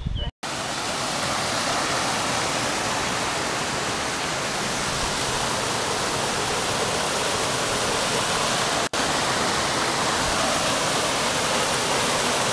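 A small waterfall and stream rushing steadily over rocks, close by. The sound drops out for an instant just after the start and again about nine seconds in.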